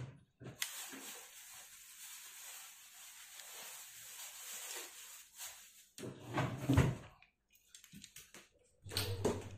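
Steady rustling hiss of handling as a fishing rod and its cloth sleeve are moved about in the hands. About six seconds in, and again near the end, come two louder, lower-pitched sounds.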